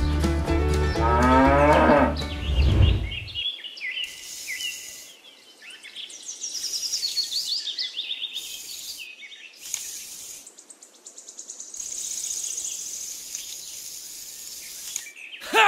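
A cow moos, a long low call that ends about three seconds in. Then birds chirp over a steady high insect trill. A short, loud sweeping sound comes at the very end.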